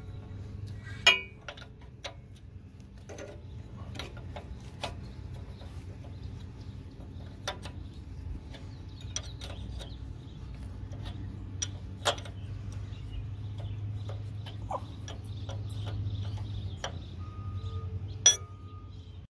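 Steel combination wrench clicking and clinking against a rusted nut as it is worked loose, with irregular light metal taps. The loudest clinks come about a second in, about twelve seconds in and near the end, over a steady low hum.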